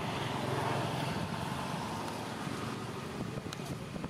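Steady outdoor background noise: a low rumble with an even hiss over it.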